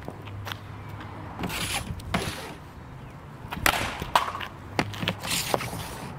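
Hockey stick blade clacking against rubber pucks on a concrete driveway, with the pucks scraping and skittering over the pavement: a string of sharp clacks and short scrapes, about one every half second to a second.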